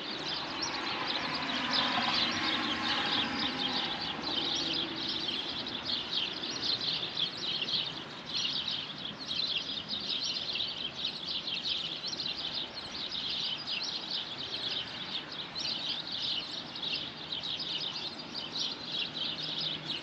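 Dawn chorus of many songbirds, with dense, overlapping chirping and twittering that carries on without a break.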